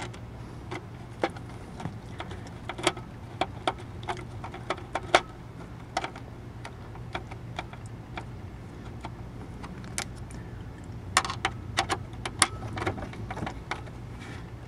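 Scattered sharp clicks and light taps of a screwdriver and plastic trim parts as the console panel's screws are driven and tightened, coming thicker near the end, over a steady low hum.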